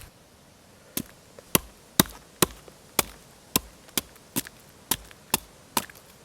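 Wood being chopped by hand: about eleven sharp strikes, roughly two a second, starting about a second in.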